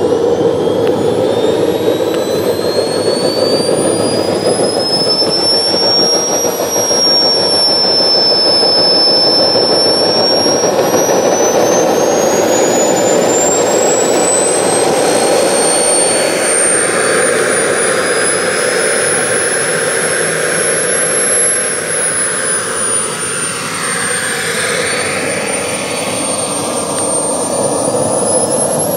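Model turboprop turbine of a large-scale RC Pilatus PC-21 starting and spooling up, driving its five-bladed propeller. The high turbine whine climbs in pitch over the first several seconds, holds, then climbs again near the end.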